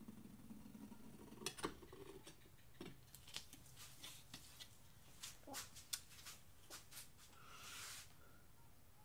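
Faint handling of a paper towel and plastic drop sheet by gloved hands: a scatter of light crinkles and clicks over several seconds, then a short rustle near the end.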